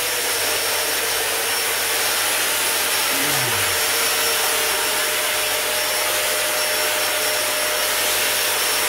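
Handheld electric disinfectant fogger running steadily: a continuous rush of blown air with a constant motor whine, like a vacuum cleaner in reverse, as it sprays a fine mist of disinfectant.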